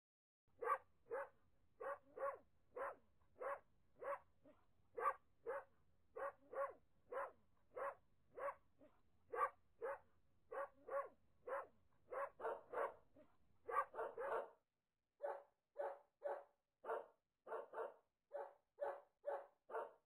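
A dog barking over and over, short single barks at an even pace of one or two a second.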